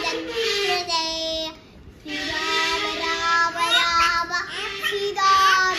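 A child singing a melody in held notes and glides, in two phrases with a short break about two seconds in.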